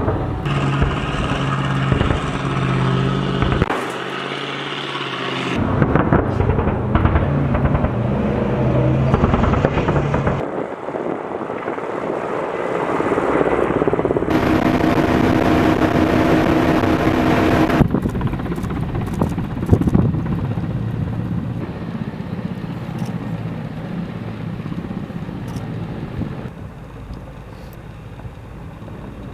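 A string of separate field recordings: armored vehicle engines running, then a Mi-8-type military helicopter flying low, its rotor and turbine engines running steadily. A single sharp crack comes about twenty seconds in.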